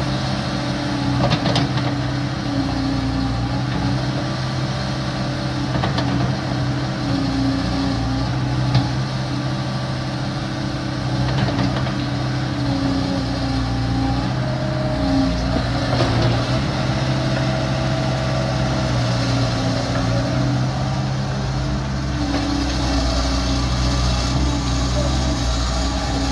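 Komatsu PC75UU-3 mini excavator's diesel engine running steadily under hydraulic load as the boom and arm are worked and the upper structure swings, with a few sharp knocks, the loudest about nine seconds in.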